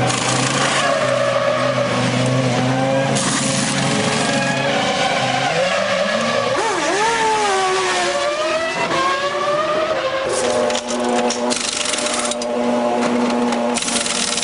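1999 Formula 1 cars' V10 engines running loud in the pit lane, the pitch gliding down and back up in the middle. From about ten seconds in, an engine holds a steady note while many short sharp clicks and rattles sound over it.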